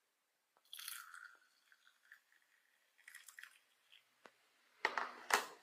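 Ginger tea trickling faintly from an appliance spout into a glass, with scattered soft clicks. Near the end come a few louder, sharp handling knocks.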